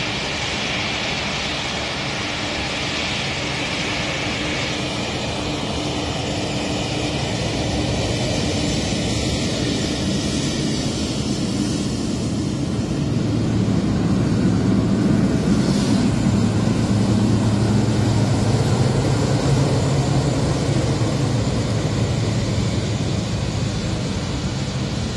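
Boeing 777X's GE9X turbofan engines running at taxi power: a steady jet roar with a thin high whine in the first few seconds, growing louder with a deeper hum from about halfway through.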